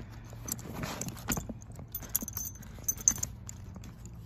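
Chrome buckle on a leather Triumph saddlebag being undone by hand: irregular metal clinks and clicks as the leather strap is worked back through the buckle.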